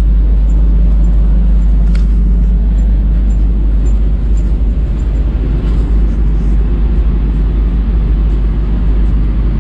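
Generator on a water-utility service truck running steadily, a constant low engine hum.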